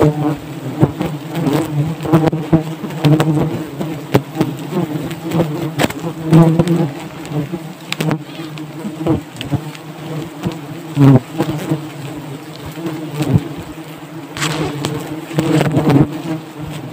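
A colony of honeybees buzzing close to the microphone around their exposed hanging comb: a steady hum with one clear overtone that swells and fades, broken by frequent sharp clicks and knocks.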